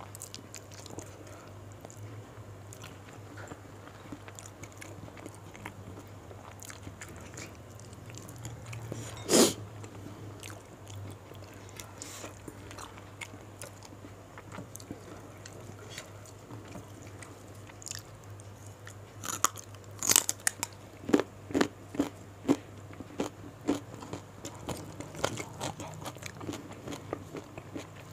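Close-miked mouth sounds of someone eating crisp fried gourami: chewing with sharp crunches, one loud crunch about nine seconds in and a quick run of crunchy bites from about twenty seconds in. A steady low hum runs underneath.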